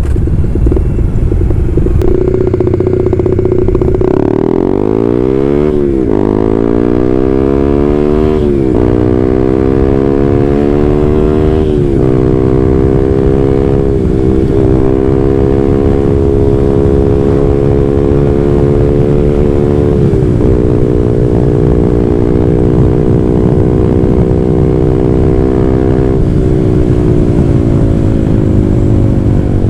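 Honda CB150R's single-cylinder engine through an aftermarket WRX GP6 silencer and stainless Blue Moon header, pulling away and accelerating hard: the pitch climbs steeply and drops at each of three quick upshifts, then the bike cruises at nearly steady revs with a couple of brief dips in engine speed.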